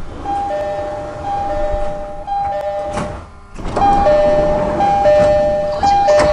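An odd-sounding variant of the JR East-style three-tone door chime on a 209-series train: a two-note high–low chime repeated three times, heard twice in a row over low train rumble. A sharp knock comes about three seconds in and another near the end.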